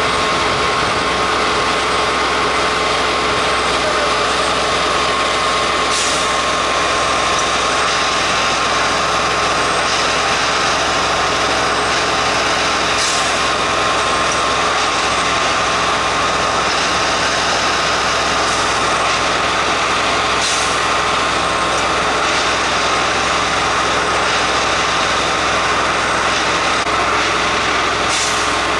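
Plasser & Theurer 08-16 compact tamping machine's diesel engine running steadily, with a constant whine and several short hisses of air.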